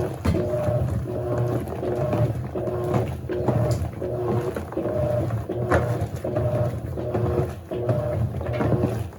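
Electrolux LAC16 Silent Control top-loading washing machine agitating during its wash stage: a low rumble of the drum and water, with the motor's hum rising and falling in a rhythm as the agitator swings back and forth.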